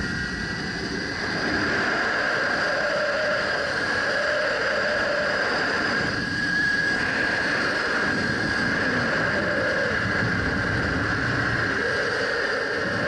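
Zipline trolley's pulley wheels running along the steel cable: a steady high whir under wind rushing over the microphone.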